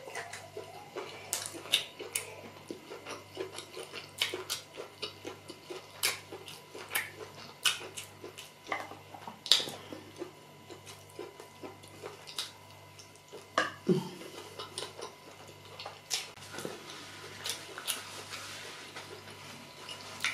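Close-miked eating sounds: wet chewing and lip-smacking, with irregular sharp mouth clicks, as rice and beans porridge is eaten by hand and fingers are licked.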